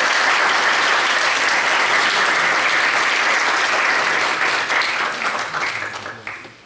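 Audience applauding, loud and steady, then thinning out and dying away over the last second or two.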